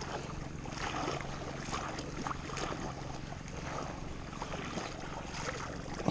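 Small boat under way: a steady low engine hum, fading somewhat about halfway, under rushing water and irregular splashes.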